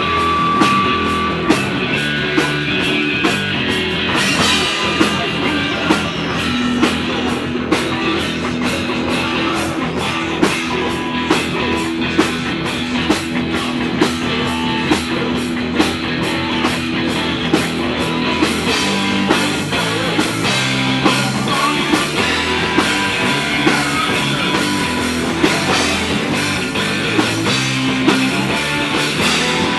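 A rock band playing live: electric guitar with a drum kit keeping a steady cymbal beat.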